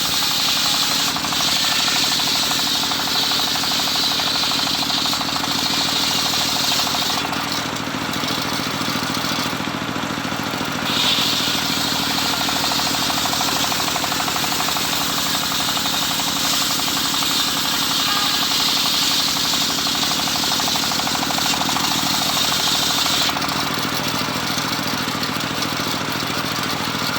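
Homemade circular sawmill cutting teak: the blade hisses and whines as it rips through the wood, falling away twice when the cut pauses, about seven seconds in and again near the end. Underneath runs the saw's drive motor, with a steady hum.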